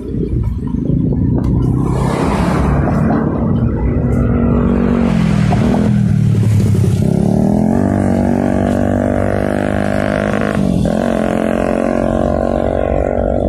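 Motor traffic passing close on the road: a vehicle's engine pulling away, its pitch dropping and climbing again twice as it shifts through the gears, over a steady low rumble of road noise.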